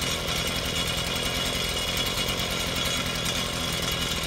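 Earthquake mini tiller's small gas engine running steadily on half choke, freshly cold-started and warming up.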